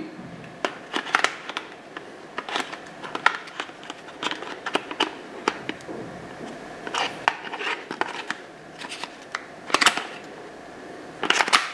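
Irregular hard-plastic clicks and knocks as a DJI Mavic Air flight battery is fumbled against the multi-battery charging hub while trying to slide it into place, with a quick cluster of clicks near the end.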